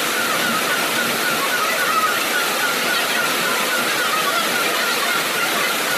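Fast-flowing floodwater rushing through a street, a loud, steady noise that does not let up.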